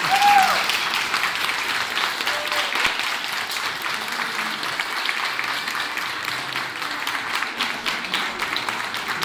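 Audience applauding: many people, adults and children, clapping steadily.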